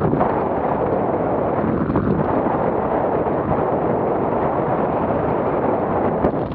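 Airflow rushing past a camera mounted on a hang glider's wing in flight: steady, loud wind buffeting on the microphone.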